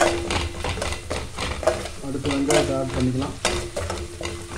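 A ladle scraping and knocking round an aluminium pot in repeated strokes, while green chillies, curry leaves and ginger-garlic paste sizzle in hot oil.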